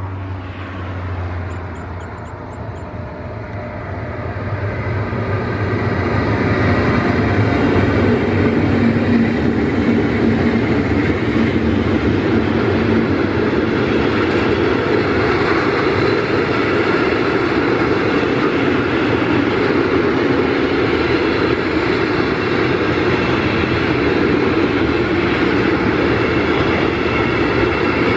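Electric-hauled container freight train passing on the rails. It swells as the locomotive draws near over the first few seconds, then the loaded container wagons roll by in a steady, loud rumble.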